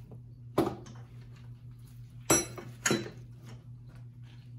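Metal valvetrain parts, roller rocker arms and a steel rocker shaft, clinking as they are handled. There are three short knocks: about half a second in, then about two and a quarter and three seconds in, and the middle one rings briefly.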